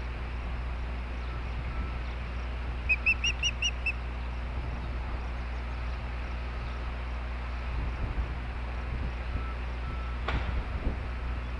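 Osprey giving a quick run of about six short whistled chirps, about three seconds in, over a steady low electrical hum. A single click near the end.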